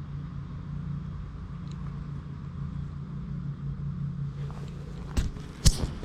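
A steady low engine-like hum runs throughout. Two sharp knocks come near the end, the second one louder.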